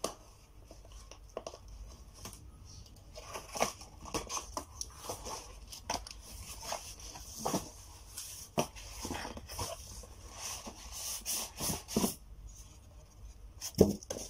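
Cardboard box being opened: packing tape slit with a cutter and the cardboard flaps pulled open, giving a string of irregular scrapes, rustles and light knocks, with one sharper knock near the end.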